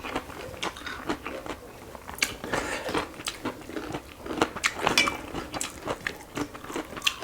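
Close-miked eating: chewing and biting food, with many short, irregular crunches and wet mouth clicks.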